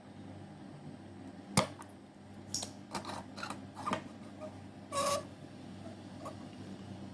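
Small tools clicking and scraping on a circuit board while a switch-mode control IC is being desoldered: one sharp click about one and a half seconds in, then a run of shorter scrapes and clicks.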